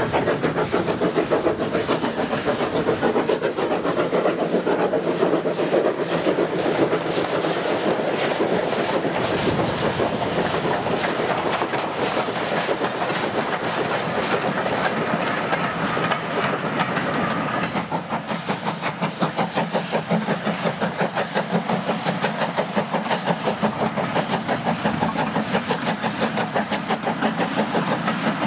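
Great Eastern Railway Class Y14 0-6-0 steam locomotive passing with a train of short four- and six-wheeled wooden carriages: first the engine working steam, then a steady rhythmic clicking of the carriage wheels over the rail joints through the second half.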